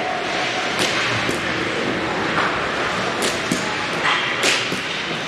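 Ice hockey play on the rink: sharp clacks and scrapes of sticks, puck and skates on the ice, about seven in all, over a steady arena background noise.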